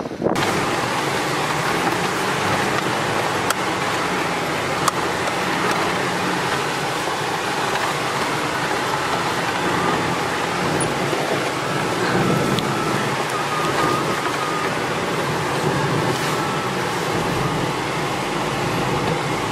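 Off-road 4x4 driving: the engine runs steadily under continuous road and tyre noise, with a couple of sharp knocks a few seconds in.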